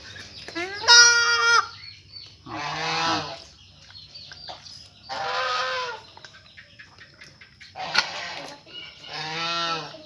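A goat bleating four times in short, high calls while it is held and force-dosed with medicine by syringe.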